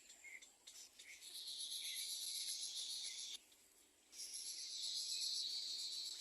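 Little egret nestlings begging for food: high-pitched raspy calls in two long bouts of about two seconds each, with short calls before them.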